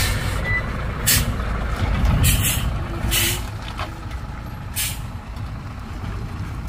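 Heavy truck's diesel engine running at low revs, broken by about five short, sharp hisses of compressed air from its air brakes in the first five seconds.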